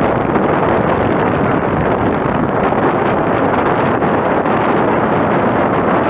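Steady wind rush buffeting the microphone on a moving motorcycle, over the low running of a Royal Enfield Bullet's single-cylinder engine.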